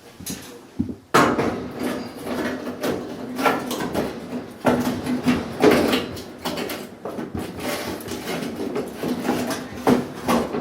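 GE clothes dryer switching on about a second in and running with a steady hum, with knocks and clatter throughout, the machine working again on its new belt.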